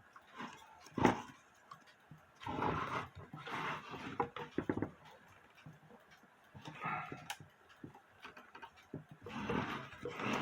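Scrapes and sharp clicks of hands working at an old alarm clock's hands, trying to pull them off the dial, in uneven bursts with a few separate clicks.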